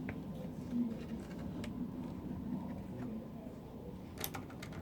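Keys of a retro typewriter-style computer keyboard being pressed: a few scattered single clicks, then a quick run of clicks near the end.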